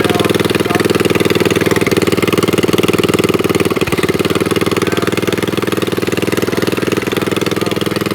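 Mini bike's small single-cylinder engine running steadily at idle with fast, even firing pulses, on a newly fitted carburetor.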